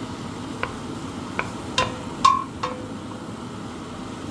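A metal utensil knocks against a cooking pot about five times as beef cubes are stirred while browning. Each knock rings briefly, and the loudest comes a little past halfway, over a steady low hiss.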